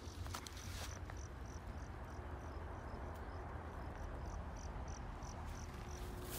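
A cricket chirping in an even rhythm, about three short high chirps a second, over a steady low rumble. A few faint clicks in the first second.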